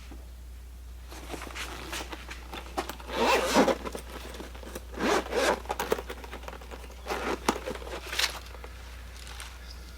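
Zipper on a small carrying case pulled in several short strokes, with rustling and clicks as it is opened and handled.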